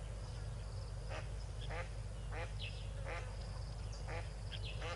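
Yellow-billed duck quacking in a string of short quacks, roughly one or two a second, with a few thin high calls in between.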